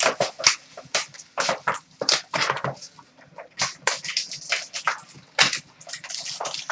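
Plastic shrink wrap and cardboard of sealed trading-card boxes crinkling and tearing as they are slit open with a blade: a quick, uneven run of crackles and rustles.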